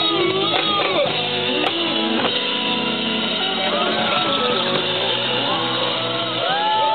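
Live rock band playing with guitars and a drum kit. A long held note comes in near the end.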